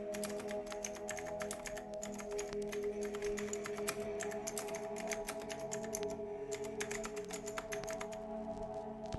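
Rapid typing on a computer keyboard, a quick run of key clicks that pauses briefly about six seconds in, resumes, and stops near the end. Calm ambient music with sustained tones plays underneath.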